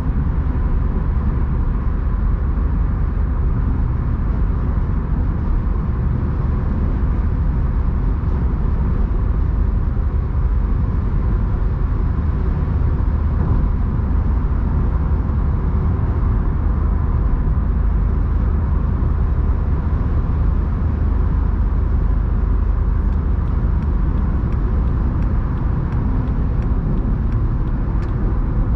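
A car driving at a steady speed: an even rumble of road and engine noise that does not change. Faint, regular ticking comes in near the end.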